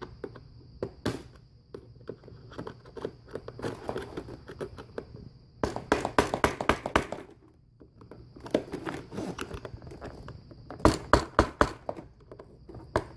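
Hammer tapping the end of a screwdriver to drive a car door handle's retaining clip further on: a single tap about a second in, a quick run of about eight taps halfway through and another run of about five near the end.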